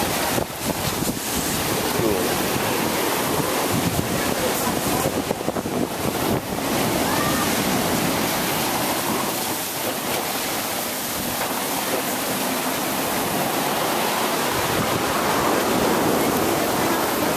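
Ocean surf breaking and washing into a sea cave over black sand and boulders, a steady rush of water, with wind buffeting the microphone now and then in the first few seconds.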